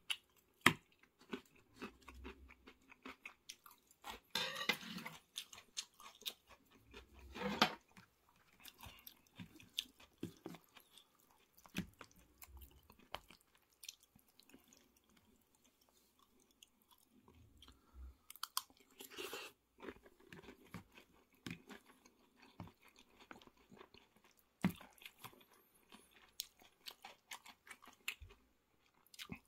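Close-miked chewing of a cheese pork cutlet curry with rice, with short clicks of a spoon against a plastic bowl. There are a few louder, longer spells of noise, about four, seven and nineteen seconds in.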